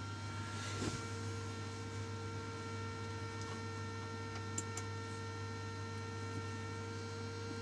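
Low, steady electrical mains hum with faint steady tones above it. There is a soft rustle about a second in.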